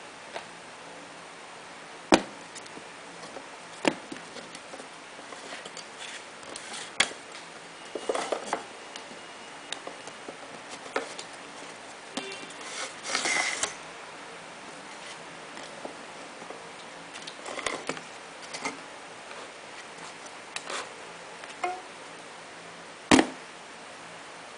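Cut soap bars being handled and set down on a corrugated plastic board: a handful of sharp taps and knocks, the loudest about two seconds in and near the end, with short bursts of rustling handling noise in between, over a faint steady hiss.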